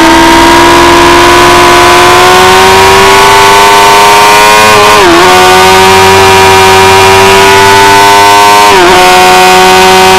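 Suzuki GSX-R sportbike engine pulling hard at high revs, its note climbing slowly, with two quick upshifts about five and nine seconds in that each briefly dip the pitch. Heavy wind rush on the onboard microphone under the engine.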